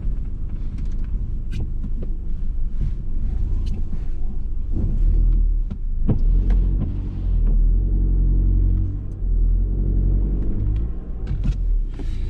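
Audi TT's engine running as the car moves slowly. A low rumble swells a few times, a steady engine note holds through the second half, and small clicks and knocks sit over it.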